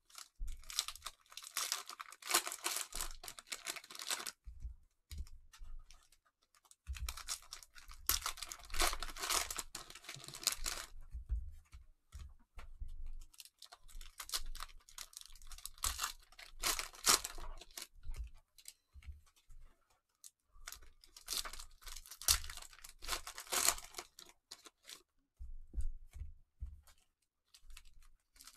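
Cellophane wrappers of Panini Mosaic cello card packs being torn open and crinkled, in several bursts of a few seconds each with short pauses between.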